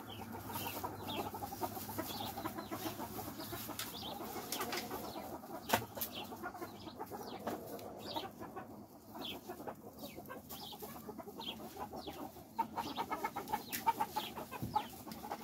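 A flock of silkie chickens clucking softly, with a steady scatter of short low calls, busier near the end. A single sharp knock sounds about six seconds in.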